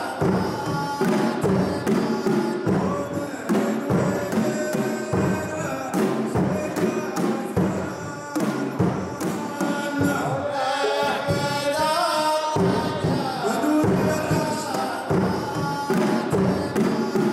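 Saudi ardah music: large frame drums beaten in a driving rhythm under group singing.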